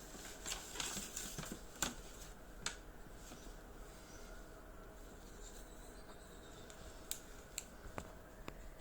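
Packaging being handled during a clothing unboxing: rustling in the first two seconds, with several sharp clicks and crinkles scattered through.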